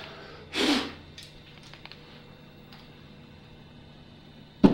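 Work noises: a short scrape or rustle about half a second in, a few faint ticks, then a single sharp knock near the end.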